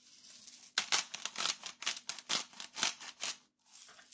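Salt dispensed by hand over a food processor bowl: a quick run of about a dozen dry rasping strokes, roughly five a second, starting about a second in and stopping after about two and a half seconds.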